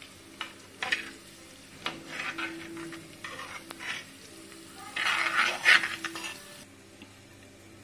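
Sliced garlic and green chillies sizzling in oil in a clay pot, stirred with a steel spoon that scrapes the pot in short strokes. The loudest stretch of stirring comes about five to six and a half seconds in, and the sizzle stops suddenly near the end.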